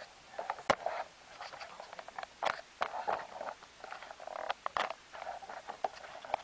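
Irregular light clicks, taps and scraping rustles at uneven spacing, with a few sharper ticks among them. No engine is running.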